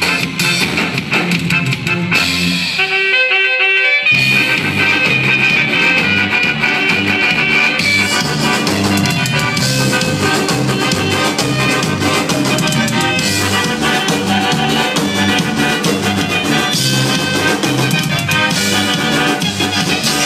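Live band playing Latin dance music on keyboards, electric guitar and drum kit, with no singing. The beat drops out about two seconds in, leaving a short held-note phrase, and the full band comes back in about two seconds later.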